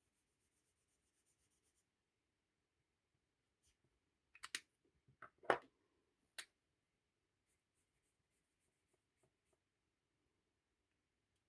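Quiet room with faint scratching of a pen on paper, and a short cluster of light clicks or taps in the middle, the loudest about five and a half seconds in.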